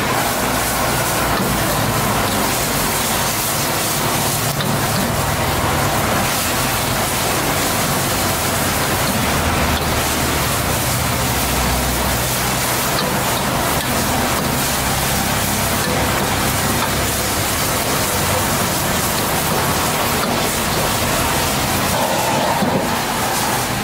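Food sizzling steadily as it is stir-fried in a hot wok over a gas burner.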